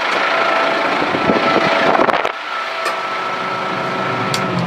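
Kubota M6-141 tractor's four-cylinder diesel engine running steadily with a faint steady whine; the overall level drops a step about halfway through.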